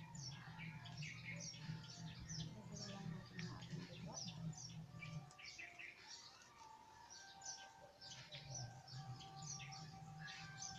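Small birds chirping busily in short, rapid, high twitters, over a faint low hum that drops out about halfway through and comes back a few seconds later.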